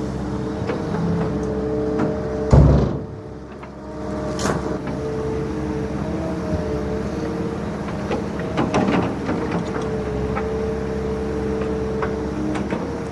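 Diesel engines of a wheeled excavator and a tipper truck running with a steady drone, broken by one loud bang about two and a half seconds in and a few sharper knocks later on.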